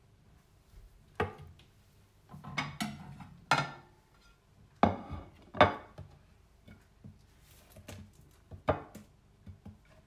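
A large kitchen knife cutting through a baked blueberry sheet pie, its blade knocking and scraping on the board beneath in an irregular run of short, sharp strokes, loudest about five and a half seconds in.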